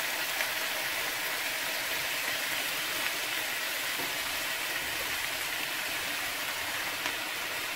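Chicken pieces sizzling steadily as they fry in oil in a nonstick pan, with a few faint clicks of a plastic spatula.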